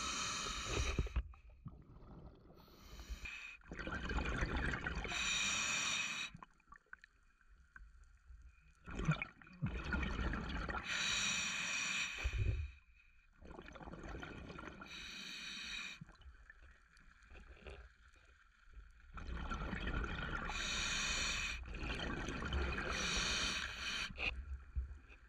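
A diver breathing through a scuba regulator underwater: hissing inhales and bubbling exhales in long bursts, roughly every four to five seconds.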